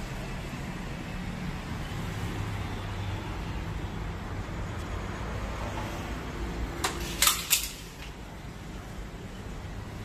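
Steady low room hum, with three or four sharp clicks close together about seven seconds in.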